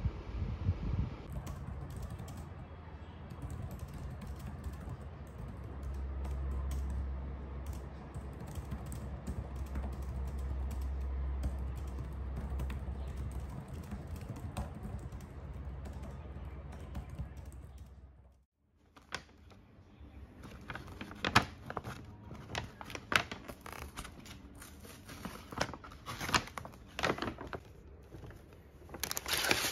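Typing on a laptop keyboard: quick, light key clicks over a low steady hum. After a break about two-thirds through, a paper shopping bag rustling and crinkling in the hands, with louder, sharper crackles.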